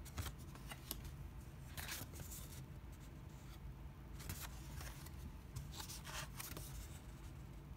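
Thin postcard-paper art cards being handled and flipped through: several short, soft paper rustles and slides, the longest about two seconds in.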